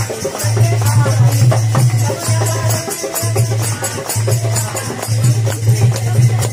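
Kirtan: a group singing a Hindu devotional song over steady rhythmic percussion strikes, with a strong low tone that comes and goes.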